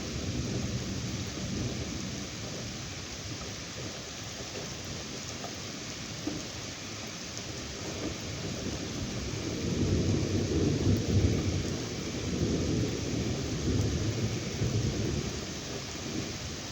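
Steady heavy rain with a long, low rolling rumble of thunder that builds about halfway through, is loudest a little later, and fades away near the end.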